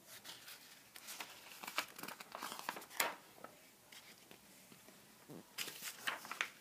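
Paper pages of a paperback picture book crinkling and rustling as the book is handled and a page is turned. The crackling comes in two spells, the first about a second in and the second near the end.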